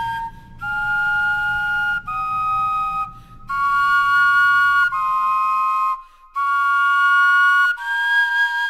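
Wind instruments carved from vegetables play a slow, flute-like tune: about six held two-note chords, each roughly a second long, with short breaks between them. The vegetables have been kept a week in a refrigerator, yet the tone sounds almost exactly the same as with vegetables bought fresh that day.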